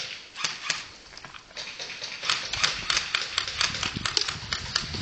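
Airsoft guns firing: a run of sharp clicking shots, a few scattered ones at first, then a fast string of about five or six a second from about halfway through.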